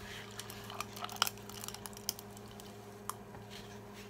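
Cola poured from a plastic bottle into a glass of ice: scattered small clicks and crackles of ice and fizz over a faint steady hum.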